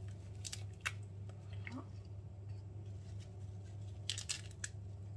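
Fresh parsley sprigs rustling and crinkling as they are handled and pushed into a plastic chopper bowl: short crisp crackles, with a cluster about four seconds in, over a steady low hum.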